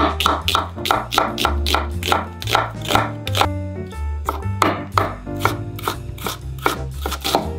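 Chef's knife slicing an onion against an end-grain wooden cutting board: quick knife taps, about three to four a second, with a short pause about halfway through. Background music with a steady bass line plays throughout.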